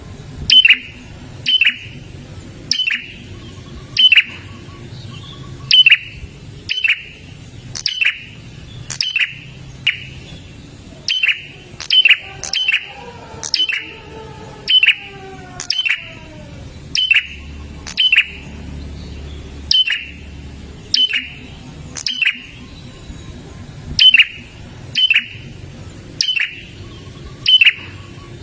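Prinia (prenjak) calling: a steady run of short, sharp, high notes, each dropping quickly in pitch, repeated a little over once a second.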